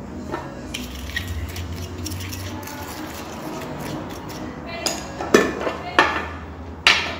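Kitchen utensils and cookware clinking and knocking: light clinks early, then a few sharper knocks in the second half.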